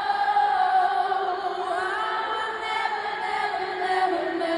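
A crowd singing together in unison, holding long notes that drop in pitch near the end.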